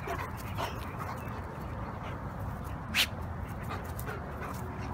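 A King Shepherd and another shepherd dog playing at close range, with low, steady scuffling noise and one short, sharp sound about three seconds in.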